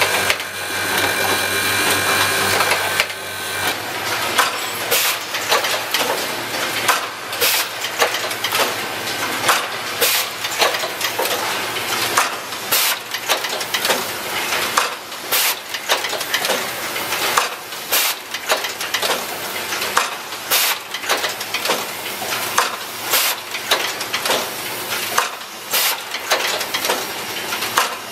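Automatic switch assembly machine running, with steady machine hum for the first few seconds, then a dense, irregular clatter of sharp clicks and knocks from its mechanisms, actuators and parts.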